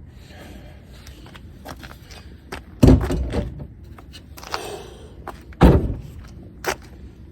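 Two heavy thuds, about three seconds apart, with small clicks and a short rattling scrape between them.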